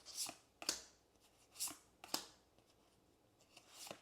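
Pokémon trading cards sliding across one another as a booster pack's cards are flipped through one at a time: about five soft, short swishes, with a pause in the middle.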